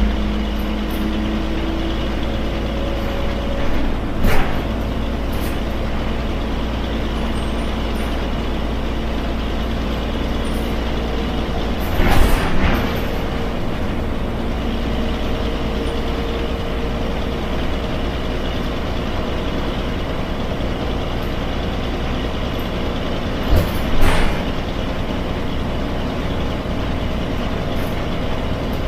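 Yangzijiang WG6100NQC4 city bus's front-mounted NQ160N4 engine running as the bus drives along, a steady drone inside the cabin. Short sharp noises break through about four seconds in, around twelve seconds and around twenty-four seconds.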